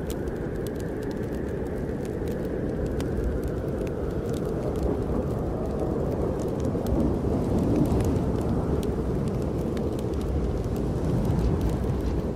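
Snowstorm wind blowing as a low, rumbling rush that swells and eases in gusts, with faint crackles of a wood fire in a fireplace.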